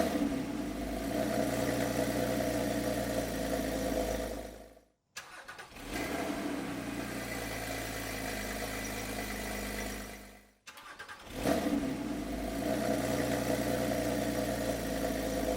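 Porsche Cayman 987.2 flat-six cold-starting through a Carnewal GT cat-back exhaust: it fires with a surge and settles into a steady fast idle. The sound stops abruptly twice, about five seconds in and again about ten and a half seconds in, and each time resumes as the engine catches again.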